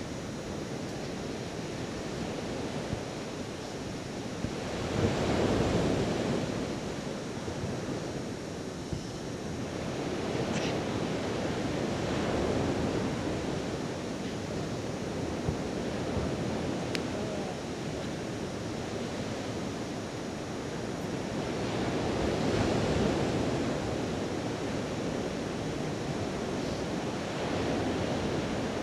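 Sea surf on a sandy beach with wind on the microphone: a steady rush of noise that swells and ebbs every several seconds.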